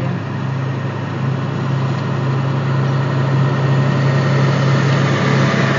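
Car engine idling, heard inside the cabin as a steady low hum while the car rolls slowly to a stop.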